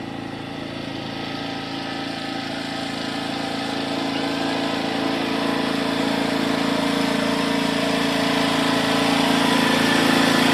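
Lawn mower engine running steadily, growing gradually louder, with what the owner takes to be a broken belt.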